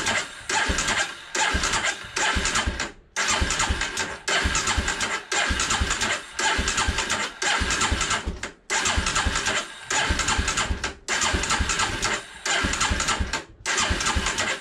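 Electric starter cranking the Polaris Predator 500's single-cylinder four-stroke engine in repeated bursts of about a second, about a dozen in all, each ending in a short pause, without the engine firing. The engine is being turned over after an oil change but deliberately not started.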